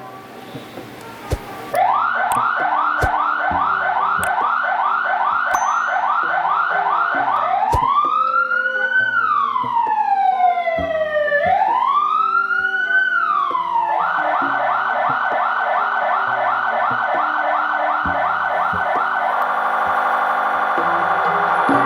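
Police-style electronic vehicle siren switching through its tones: a fast yelp of quick rising sweeps, then two slow rise-and-fall wails, the yelp again, and a rapid warble near the end. It starts about two seconds in, with background music underneath.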